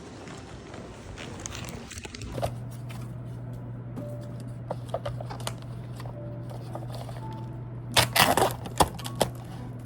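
Scattered small clicks and handling noises over a steady low hum. A louder cluster of sharp clicks and clatter comes near the end.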